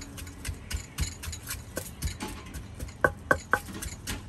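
Quick, uneven knocking and tapping of Thai salad being prepared, about three or four strokes a second, with three louder knocks that ring briefly about three seconds in.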